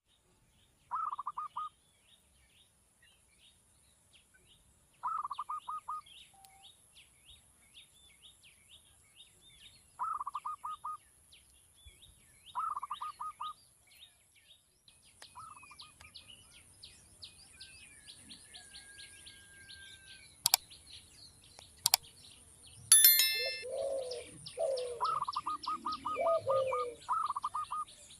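Birds calling: short, rapid chattering trills repeat every few seconds over a steady background of faint, high chirping. Two sharp clicks come about two-thirds of the way in, and lower-pitched calls join near the end.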